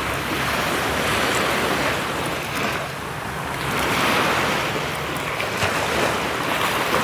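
Sea surf washing onto the beach, swelling about a second in and again around four seconds, with wind buffeting the microphone.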